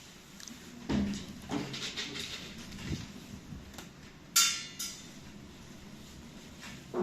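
Handling noise: a few dull knocks and thuds, then two sharp metallic clinks about half a second apart.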